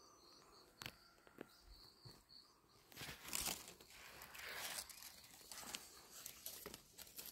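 Dry bamboo leaves and dead stems crackling and rustling as someone pushes through a bamboo thicket, busiest from about three seconds in.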